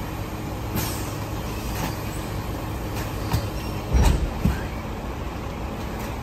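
DSNY rear-loader garbage truck's diesel engine running steadily, with sharp clanks and thuds as trash bags are thrown into the rear hopper; the heaviest thud comes about four seconds in.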